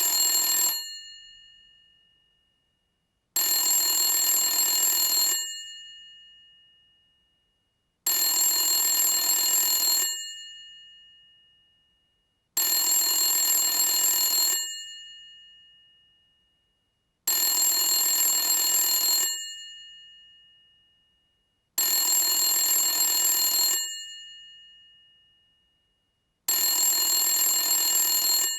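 Old rotary telephone's bell ringing in repeated rings, each about two seconds long and fading out as it stops, starting again about every four and a half seconds.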